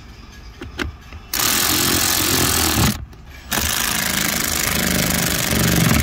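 Cordless electric ratchet running in two bursts, the first about a second and a half long, the second about two and a half seconds, driving home the 8 mm screws that hold a new blower motor. A few light clicks come just before the first burst.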